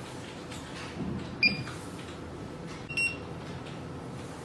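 Two short electronic beeps from the paging system's keypad as buttons are pressed during pairing, about a second and a half apart, the second slightly lower in pitch.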